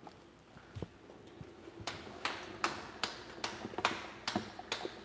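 Hands patting tortilla dough flat between the palms: a rhythmic slapping, about two to three pats a second, starting about two seconds in. A soft knock of ladle and bowl comes just before it.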